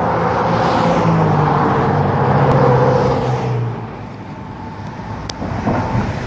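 A road vehicle passing close by, its engine tone dropping slowly in pitch as it goes, over tyre and road noise. It fades about four seconds in, leaving quieter traffic noise.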